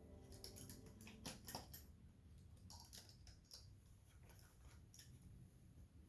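Faint, scattered clicks and light taps of small tools being handled and opened.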